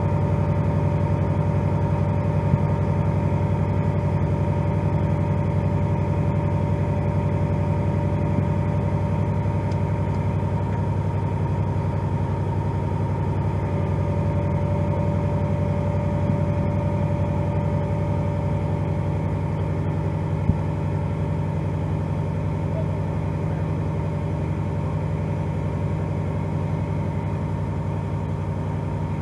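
The Cummins ISM 10.8 L six-cylinder diesel of a 2003 Pierce Quint ladder fire truck running steadily at an even speed, with a thin steady whine over the engine sound.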